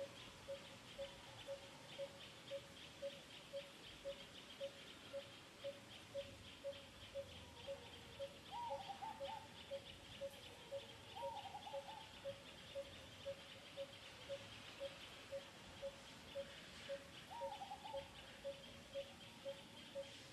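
A bird repeating a single low note about twice a second, over a steady high insect buzz. Three short calls that rise and then fall come through in the middle and later part.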